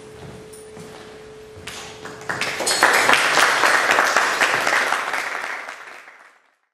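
Audience applause breaks out about two seconds in, after a faint steady tone, and fades away to silence near the end.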